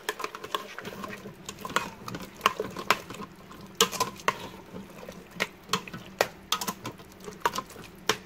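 A spoon stirring thick chili with kidney beans in a stainless steel cooker pot. The spoon clinks and scrapes against the pot's side several times a second at an uneven pace, over a soft wet churning.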